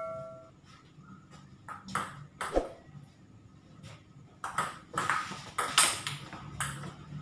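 Table tennis ball clicking off rubber-faced paddles and the table top during a rally: sharp knocks in an uneven rhythm, a few around two seconds in, then a faster exchange from about four and a half seconds in.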